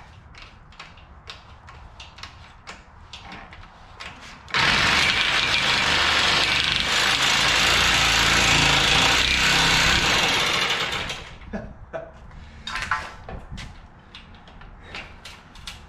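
Corded reciprocating saw with its blade bound in a cut in a steel frame: light clicks and rattles as it is handled, then about four and a half seconds in its motor starts abruptly and runs at full speed for about six seconds before winding down. The trigger lock has stuck on.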